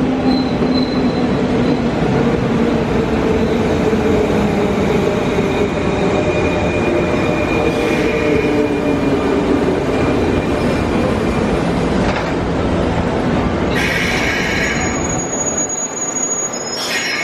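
201-series electric commuter train running on the rails, with wheels squealing in thin, slowly wavering tones over a steady rumble. There is a short burst of hiss near the end.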